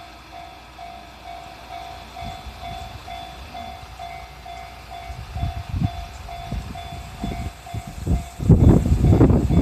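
Japanese railway level-crossing warning bell ringing with a steady repeating ding. About eight and a half seconds in, the loud low rumble of a train rises over it.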